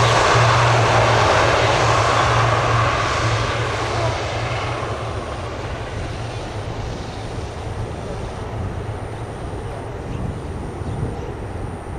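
ATR 72-600 turboprop airliner on departure, its twin Pratt & Whitney PW127M engines and propellers giving a steady low hum over a loud rushing drone. The sound is loudest at first and fades from about four seconds in as the aircraft moves away.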